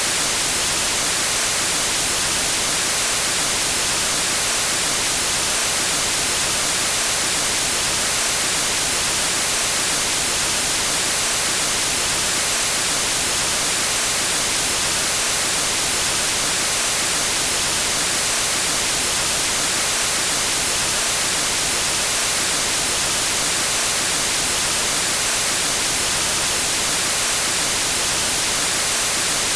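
Steady TV static hiss, white noise, even and unchanging, strongest in the treble.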